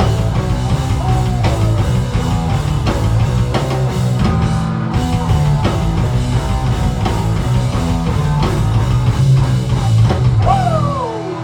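Punk rock band playing live, loud: distorted electric guitars, bass and drums. Near the end the band drops out, leaving a falling pitch slide and one held note ringing as the song ends.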